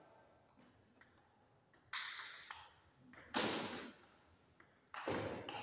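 Table tennis rally: a celluloid-type ball clicking off bats and the table, then three harder hits about a second and a half apart that ring briefly in the hall.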